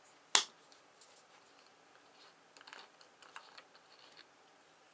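A single sharp click of hard plastic being handled about a third of a second in, then a run of faint light clicks and taps.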